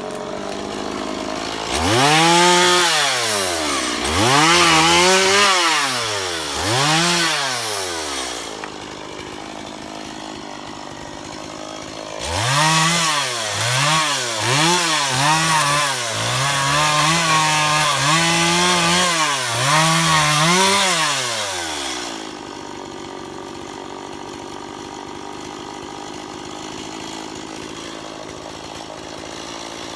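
Two-stroke chainsaw being revved up and down again and again in two spells: three throttle bursts near the start and a longer run of about eight in the middle. Between and after them the saw idles more quietly.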